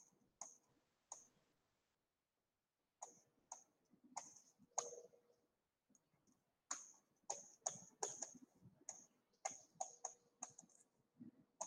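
Faint, irregular clicks and taps of a stylus on a tablet or touchscreen as handwriting is written, coming in short runs with pauses between.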